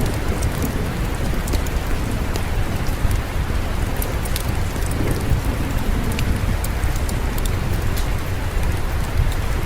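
Steady rainfall hiss over a continuous low rumble, with scattered sharp crackles and pops from a wood fireplace.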